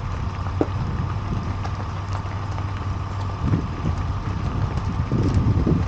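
Vehicle engine running with a steady low hum, with a few louder low rumbles about halfway through and near the end.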